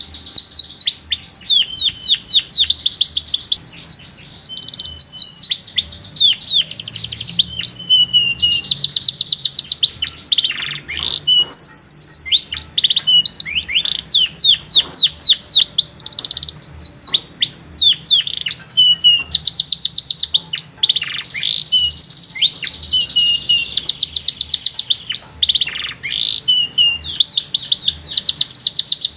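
Domestic canary singing loudly and without pause: fast trills of rapidly repeated high notes, switching to a new trill every second or two, broken by quick downward-sweeping notes.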